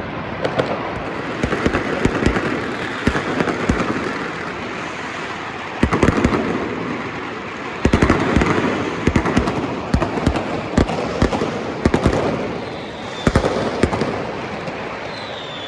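Dense, continuous fireworks and firecrackers going off all around, many sharp bangs over a steady crackle, echoing between high-rise apartment blocks. The heaviest volleys come about six and eight seconds in, and a faint falling whistle is heard near the end.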